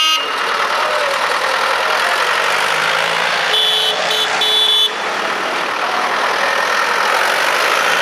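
Vintage tractor engines running as tractors drive past in procession. About halfway through, a horn sounds twice in quick succession.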